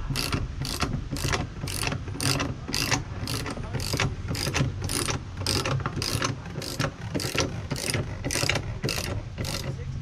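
Ratchet wrench clicking in a steady rhythm, about three clicks a second, as it turns the threaded rod of a cutlass bearing puller, drawing the worn cutlass bearing out of the P-bracket. The clicking stops just before the end.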